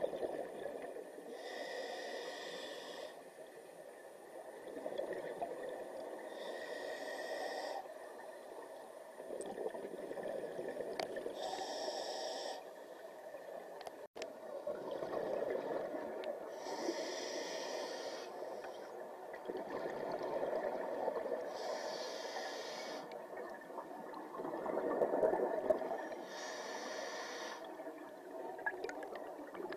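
Scuba diver breathing through a regulator underwater: a short hiss on each inhale about every five seconds, six times, alternating with the lower bubbling rush of each exhale.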